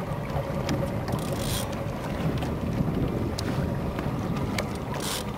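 Wind buffeting the microphone on a boat at sea, a steady low rumble, with two short hisses, one about a second in and one near the end.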